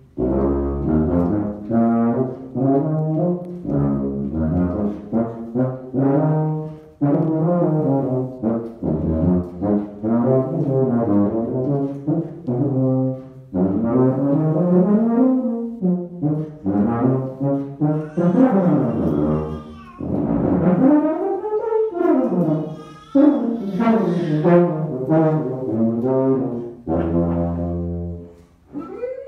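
Miraphone tuba played solo in a free improvisation: fast runs of short notes, sweeping glides up and down in pitch around the middle, and deep held low notes right at the start and again near the end.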